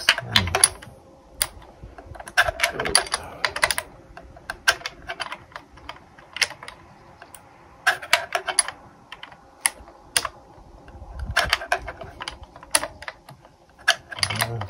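Small metal hex key clicking and rattling in the head of the middle stand's mounting screw and against the stand bracket as the screw is worked in by hand, in short irregular clusters of sharp clicks every second or two.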